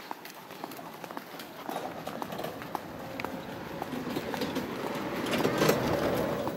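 Footsteps of a person walking, heard as irregular sharp clicks, under a rushing noise with a faint hum. The noise builds from about two seconds in, is loudest near the end, then drops away.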